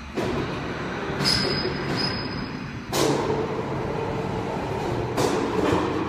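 Cable tray roll-forming line running: a steady mechanical drone broken by several sudden loud strikes, the loudest about three seconds in.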